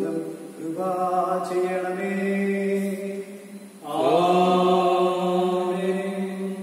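A man's voice chanting a liturgical prayer in long held notes, phrase after phrase with short breaks between; one phrase slides up into its note about four seconds in.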